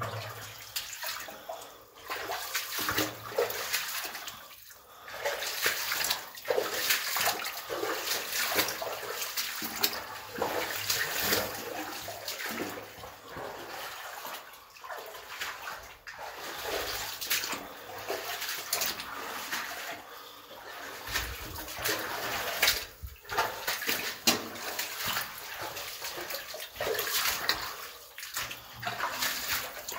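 Continuous irregular scuffing and rustling of people moving through a narrow, rough stone tunnel, with uneven short scrapes.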